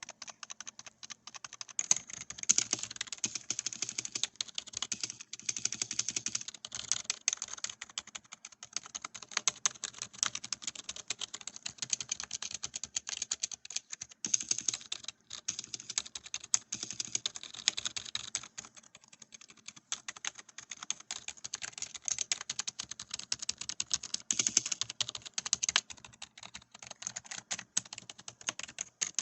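Typing on a Redragon Aditya K513 membrane keyboard: a fast, continuous run of soft key presses, thinning out briefly a few times.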